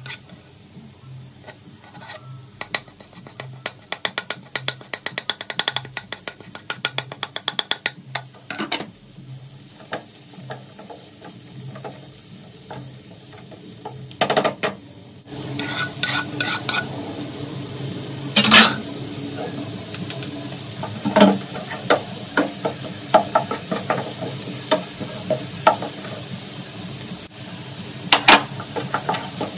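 Wooden spatula stirring and scraping diced vegetables in a hot non-stick frying pan, with many small clicks of spatula on pan. About halfway through the frying sizzle grows louder and steadier, broken by a few sharp knocks.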